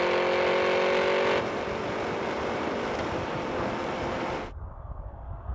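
Large SUV engine at full throttle, its note climbing slightly, giving way about a second and a half in to a rushing noise of engine and wind. The sound cuts off abruptly near the end, leaving a faint low rumble.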